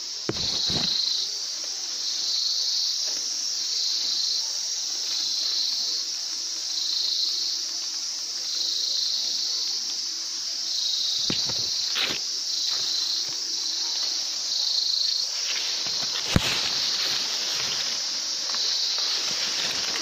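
A steady, high insect chorus with a pulsing note about once a second. A few brief knocks come through it, and one sharp click about three-quarters of the way through is the loudest sound.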